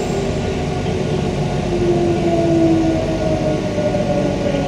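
Queensland Rail electric multiple unit heard from inside the car, running on the rails with a steady rumble. A whine falls slowly in pitch as the train slows into a station.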